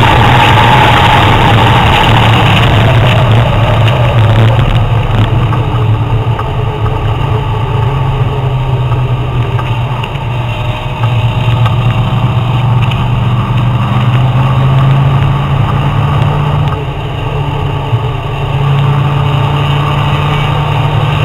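Car engine and wind rush heard from inside the cabin at high speed, then easing off about four seconds in as the car slows hard for a corner. The engine note then shifts and climbs again a couple of times as the driver powers out.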